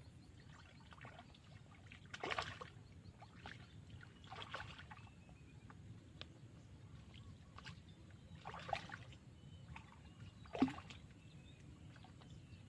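Water splashing at the surface of a canal: four short splashes and sloshes, the loudest near the end, over a low steady background with faint thin chirps.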